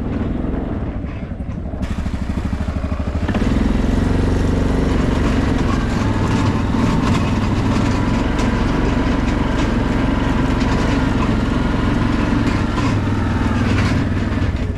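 A vehicle engine running steadily with a rhythmic pulse, picking up about three seconds in, with a thin whine over it from about six seconds in until near the end.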